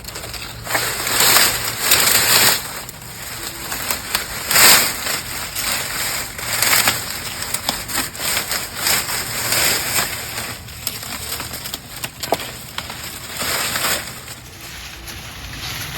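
Dry sugarcane stalks and leaves rustling and crackling as a tall cane is cut and pulled down, in irregular swells with scattered sharp snaps.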